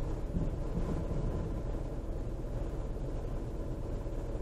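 Steady low rumble inside a car's cabin as it drives slowly on a gravel road, with engine and tyre noise.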